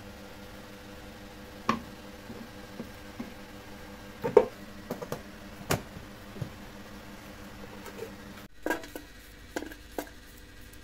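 Scattered clinks and knocks of cooking utensils against a pan, about eight in all, the loudest about four seconds in, over a steady low hum. The background changes abruptly about eight and a half seconds in.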